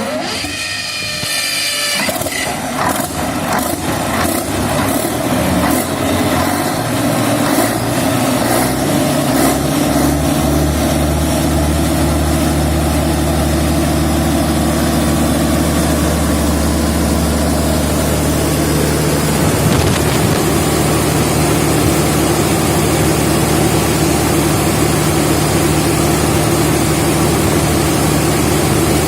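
790 kVA Perkins diesel generator set starting up: a rising whine for the first couple of seconds, uneven firing as the engine catches, then settling by about ten seconds in to a steady, even run.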